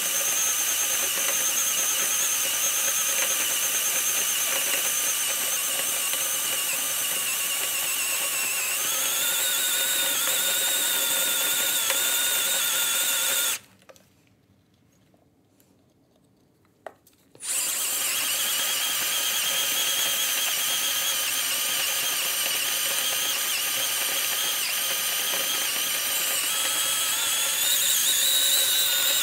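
Handheld DeWalt power drill running a twist bit through 5/8-inch steel plate, a steady high whine as the bit cuts into the metal. Its pitch steps up about a third of the way in. The drill stops for about four seconds midway, then starts again.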